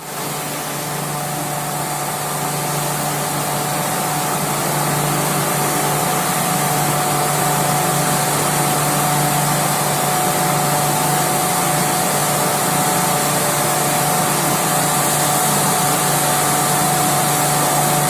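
Blast furnace taphole drilling machine running as it bores into the taphole to open it for casting. It makes a loud, continuous mechanical noise with a steady hum and a thin steady whine, building a little over the first few seconds and then holding.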